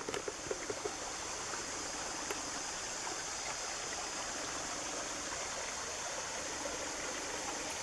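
Creek water running steadily, an even rushing hiss, with a few faint ticks in the first second.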